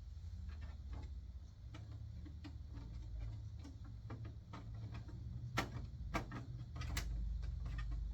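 Light plastic clicks and taps from handling a printer and its parts, with a few louder clacks between about five and a half and seven seconds in, over a low steady hum.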